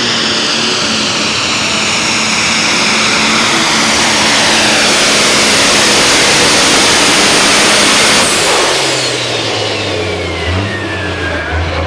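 A pulling vehicle's engine run at full throttle under load, building steadily, then shut off about eight seconds in: the sound drops sharply and a high whine falls steadily in pitch as it winds down, over a low engine rumble.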